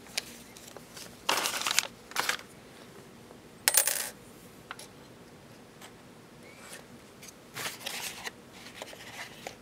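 Small metal hardware (screws, a tiny Allen wrench and aluminium gimbal pieces) clinking as it is handled in clear plastic bags on a tabletop. There are three short sharp chinks in the first four seconds, the last one ringing, then fainter rustling and light ticks near the end.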